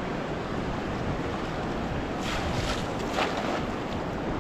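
Water sloshing close to the camera over a steady rush of wind on the microphone, with a few short splashes about two to three seconds in.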